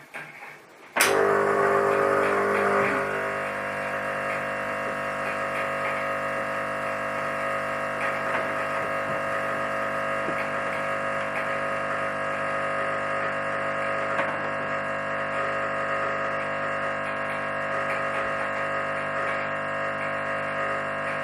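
Espresso machine pump switching on suddenly and running with a steady, many-toned electric hum while backflushing cleaning solution against a blanking disc. It is loudest for the first couple of seconds as pressure builds, then settles to a slightly lower, constant drone.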